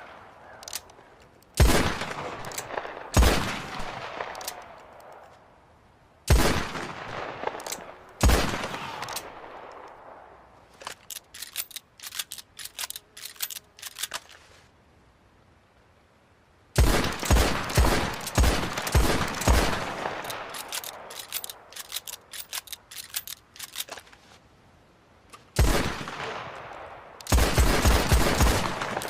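Colt Navy revolver firing: four single shots, each with a long echoing tail, then a run of quieter clicks, then rapid strings of several shots in quick succession.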